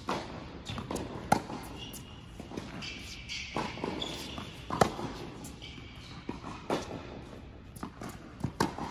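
A tennis rally on an indoor hard court: sharp pops of racket strings striking the ball and the ball bouncing, with footsteps and brief shoe squeaks between the shots. The loudest hits come about a second and a half in and about five seconds in, with a quick pair of hits near the end.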